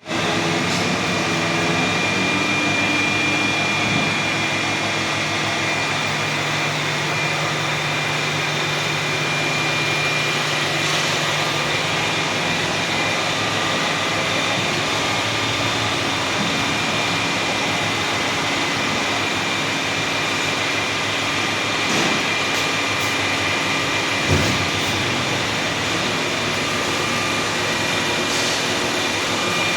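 WMW Union BFK 110 CNC horizontal boring machine running: a steady mechanical hum with a steady high whine over it, and two brief knocks about two-thirds of the way through.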